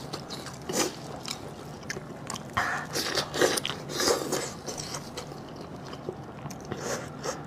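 A person biting and chewing food close to the microphone: irregular short mouth clicks and crunches, typical mukbang eating sounds.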